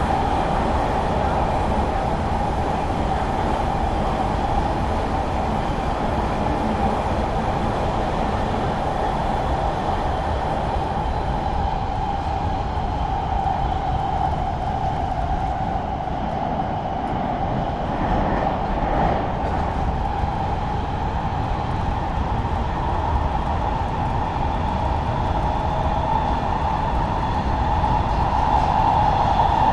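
Los Angeles Metro Rail train running, a steady rail noise with a constant mid-pitched drone that grows a little louder near the end.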